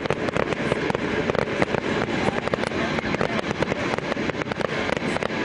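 Aerial fireworks bursting in a dense, rapid string of bangs.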